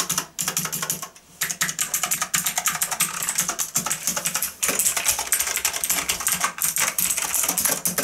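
Fast typing on a mechanical keyboard with clicky blue switches, a dense run of sharp key clicks with a brief pause about a second in. This is a key-by-key test after the keycaps were refitted, checking that each key registers.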